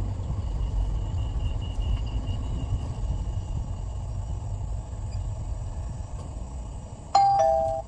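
Low, steady rumble of a car's engine and tyres, heard from inside the cabin while driving. Near the end comes a loud, short electronic chime of two notes, the second lower than the first.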